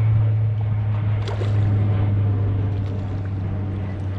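Boat motor running with a steady low hum, and a faint click about a second in.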